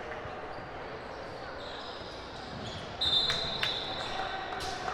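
Youth basketball game on a hardwood court: sneakers squeaking and a ball bouncing over voices in the gym, then about three seconds in a short, shrill referee's whistle blast.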